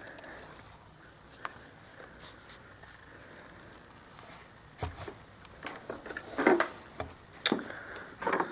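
Scattered light clicks, taps and rustles from hands handling the plastic body of a Bissell ReadyClean carpet shampooer. They become more frequent in the second half, with a few louder knocks.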